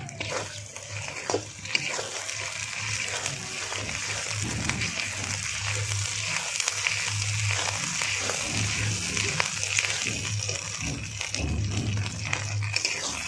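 Onion, garlic paste and ginger paste sizzling steadily in hot mustard oil in a kadai, with scattered clicks and scrapes of the spatula as the masala is stirred.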